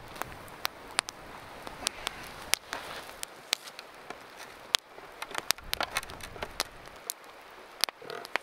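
Wood campfire crackling: sharp, irregular pops over a soft steady hiss.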